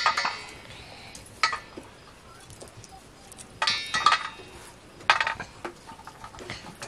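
Shelled beans dropping into a metal plate, landing as four or so short clinks with a brief metallic ring, while dry bean pods are split by hand.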